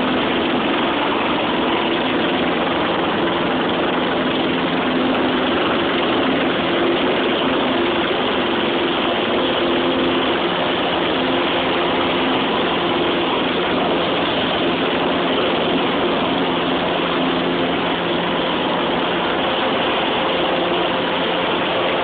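Small single-engine propeller plane's engine and propeller running at a loud, steady drone, heard from inside the cabin through a cell phone's microphone. The noise drowns out the voices in the cockpit.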